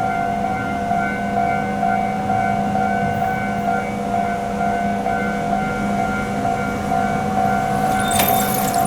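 Japanese level crossing alarm ringing, its electronic 'kan-kan' tone repeating steadily. A little after 8 seconds in, a louder rushing noise comes in: the approaching train.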